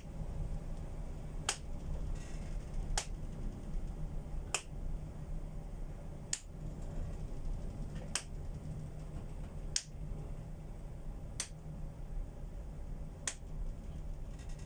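Sharp clicks from an unidentified source, eight in all, about one every one and a half to two seconds, over a steady low rumble aboard a tanker.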